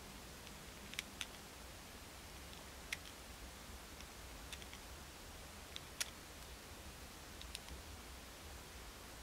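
Scattered sharp little clicks and taps as a clear plastic folder strip is pressed and slid against the edges of a resin-clay flower cookie and the fingers holding it, about eight in all at uneven intervals, the loudest about six seconds in, over a faint steady background.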